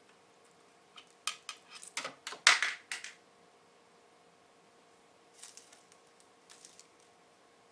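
A quick run of clattering knocks and rattles over about two seconds, loudest about two and a half seconds in, as a cat knocks its toy about on a wire shelf; two faint rustles follow later.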